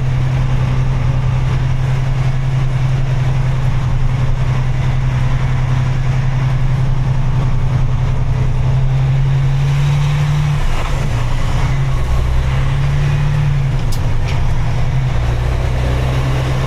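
A vehicle's engine running with a steady low drone, heard from inside the vehicle while driving. The engine note shifts and wavers about ten seconds in, as with a change of speed or gear.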